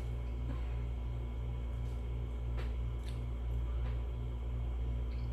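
Steady low background hum with a faint pulse, and a few faint clicks of chewing and mouth sounds from eating.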